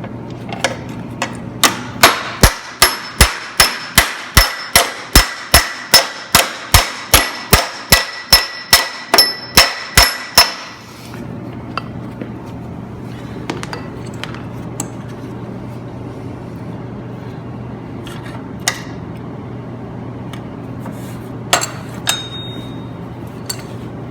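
Hammer blows on the steel frame of a Cub Cadet zero-turn mower, beating a dip in the cracked frame flat. The blows come in a steady run of about twenty, roughly two and a half a second, each with a metallic ring, and stop about ten seconds in. A low steady hum and a few scattered knocks follow.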